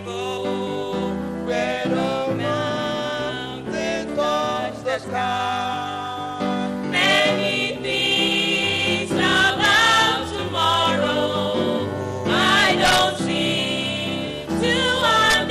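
Small gospel vocal group of mixed male and female voices singing together through microphones, over instrumental backing with steady bass notes.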